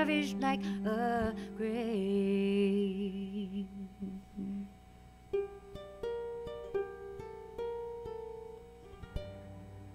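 The close of a song for ukulele and cello: held notes with vibrato over a low sustained note fade out about four seconds in. Then a handful of single ukulele notes are plucked slowly, each left to ring and die away.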